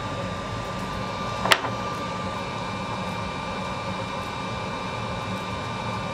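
Steady hum of a fan with a thin, high steady whine, and one sharp click about a second and a half in.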